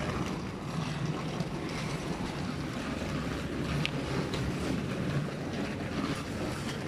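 Steady rumbling noise of wind buffeting a phone microphone as the person holding it walks along a paved path, with faint footsteps.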